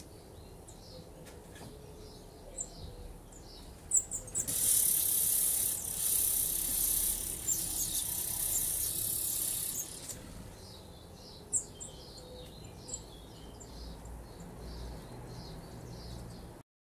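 Songbird nestlings begging as a parent arrives at the nest: a loud, high hissing chorus of begging calls for about six seconds in the middle. Before and after it come short, high chirps repeated several times a second.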